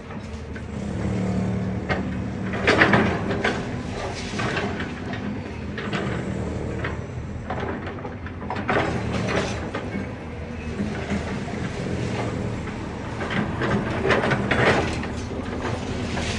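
Demolition excavator's diesel engine running steadily, with several bursts of crashing and clattering as debris breaks and falls, loudest about three seconds in and again near the end.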